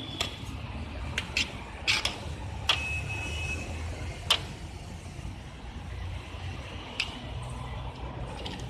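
Steady low rumble of street traffic, with sharp metallic clinks every second or two, one of them ringing briefly.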